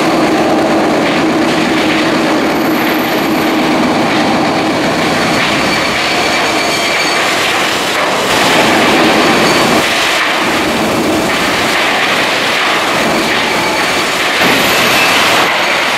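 Heavy diesel demolition machinery breaking up a concrete bridge deck: continuous loud mechanical noise that swells a little now and then.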